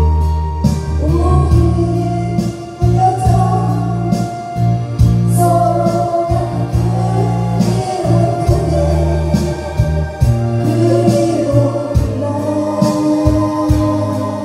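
A woman singing a slow ballad into a karaoke microphone over a karaoke backing track with a steady bass line; her voice comes in about a second in.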